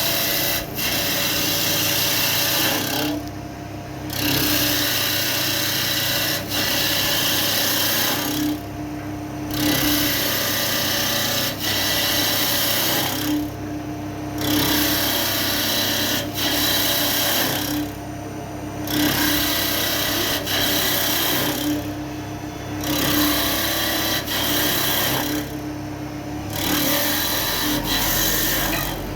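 CNC wood lathe machining a wooden table-base blank: a steady cutting hiss over a constant machine hum, easing off briefly about every four to five seconds between passes.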